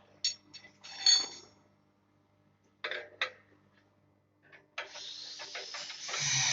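Metal clinks and knocks with brief ringing, as tools or steel parts strike one another. Near the end a steady hiss with a low hum starts and grows louder.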